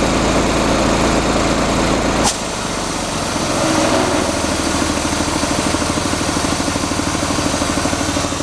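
North Star air compressor running as it builds pressure toward 175 psi. A little over two seconds in there is a sharp click and the sound changes, the deep hum dropping away as it settles into a steady, fast pulsing beat.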